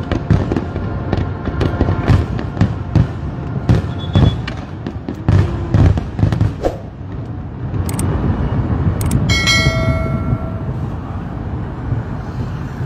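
Aerial fireworks going off in rapid succession, a dense series of bangs and crackles for the first seven seconds or so, then a steadier rumbling noise. About nine seconds in, a brief held tone sounds over it for about a second.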